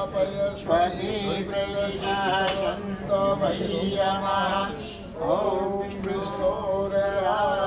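Hindu priest chanting wedding mantras in long, sung phrases, with a brief pause about five seconds in.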